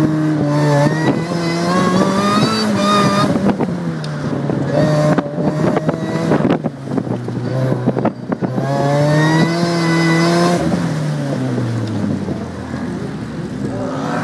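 Mazda Miata's four-cylinder engine revving up and down hard through an autocross run, heard from inside the open-top cockpit with wind noise. Past the middle the revs climb again, then drop away near the end as the car slows.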